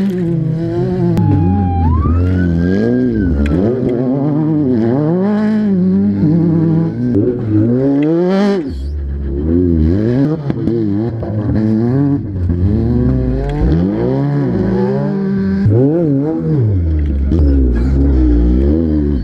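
Off-road race vehicles' engines revving hard as they pass close one after another, the pitch rising and falling again and again with throttle and speed over the rough dirt.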